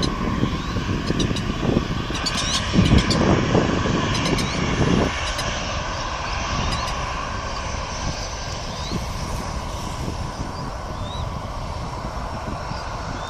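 Jet airliner engines running, a steady roar with a whine near 1 kHz, easing slightly after about five seconds. Heavy low bumps of wind or handling on the microphone in the first five seconds.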